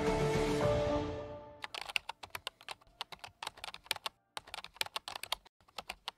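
Background music fading out over the first second and a half, then rapid keyboard typing clicks in irregular runs, with a short pause about four seconds in.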